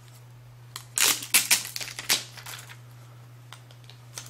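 Clear plastic wrapping crackling and crinkling as it is peeled off an e-reader: a cluster of sharp crackles from about a second in that lasts about a second and a half, then a few softer rustles.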